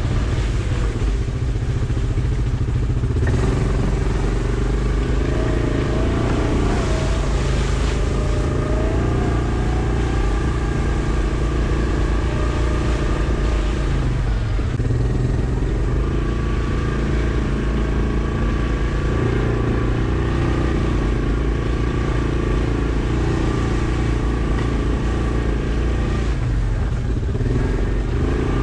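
Yamaha Kodiak ATV's single-cylinder four-stroke engine running under way, its pitch rising and falling as the throttle changes.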